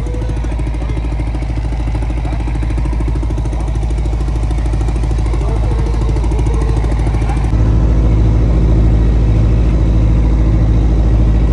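Fishing boat's engine running steadily with a fast, even throb; the sound shifts abruptly and gets a little louder about seven seconds in.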